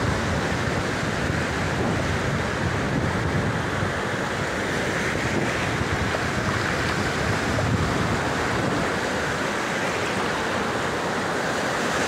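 Ocean surf breaking and foaming in the shallows, a steady rush of water, with wind buffeting the microphone.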